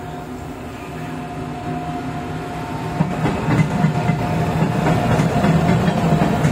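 Indian Railways electric locomotive passing close by, its steady hum growing louder, with wheels clicking over rail joints from about halfway.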